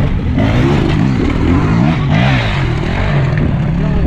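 Two enduro dirt bikes revving hard as they climb a rocky trail past close by, the engine pitch rising and falling again and again with the throttle.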